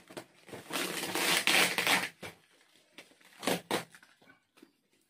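Packing tape ripping away from a cardboard parcel wrapped in plastic, with the wrap crinkling: one long tearing rustle, then a few shorter rips about three and a half seconds in.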